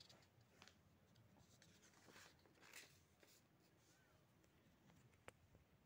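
Near silence, with faint rustles of paper sheets being handled and turned by hand about two and three seconds in, and a soft tick about five seconds in.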